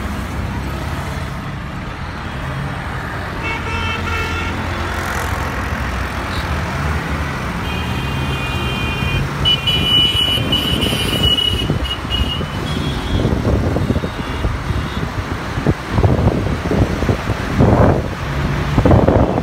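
Road and traffic noise heard from a moving car, with vehicle horns honking several times between about three and thirteen seconds in. Near the end, wind buffets the microphone in gusts.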